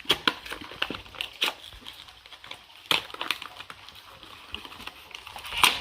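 Plastic toy packaging crinkling and crackling as it is handled, in irregular clicks with a louder crackle near the end.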